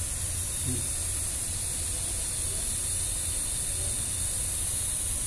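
Steady background hiss with a low hum underneath, unchanging throughout.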